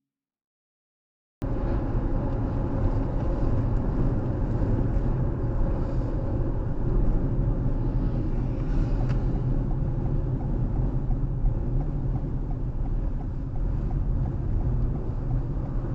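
A car being driven: steady low road and engine rumble that cuts in abruptly about a second and a half in, after near silence.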